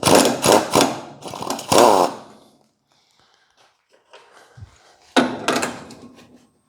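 Power tool spinning off a strut's mounting nuts: a run of short bursts for about two seconds, a pause, then another burst about five seconds in.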